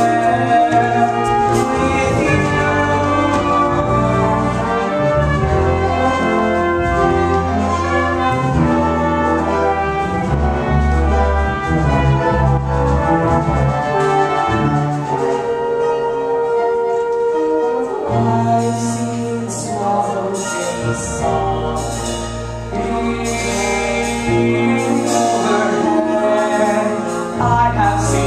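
Orchestral music with brass playing an instrumental passage. About halfway through, the bass drops out for a few seconds under a long held note, then comes back.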